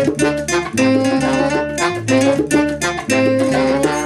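Acoustic band playing an instrumental passage between sung lines: plucked guitar notes over a bass line and a steady, even percussive beat.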